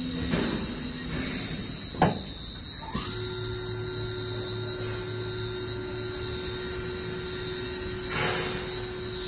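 CNC Swiss-type lathe (WMT B20, five-axis) running with a steady high whine. A sharp clack comes about two seconds in and another about a second later, after which a steady motor hum holds. Brief bursts of hiss come near the start and near the end.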